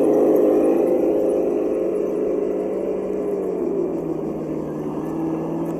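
Electric motor and gear drivetrain of a scale RC crawler truck whining at a steady pitch, dropping to a lower pitch a little past halfway as it slows.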